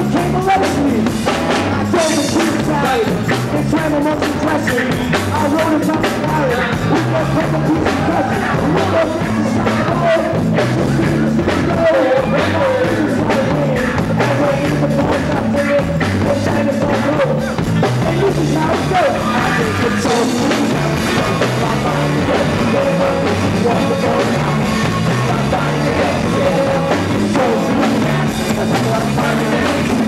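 A rock band playing live at full volume: electric guitars, bass and a drum kit keeping a steady beat, with a singer on top.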